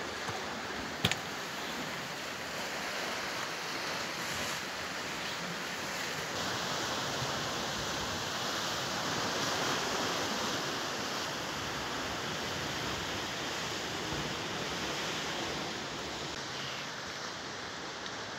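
Steady rushing noise of sea surf washing against the rocky shore, with one sharp click about a second in.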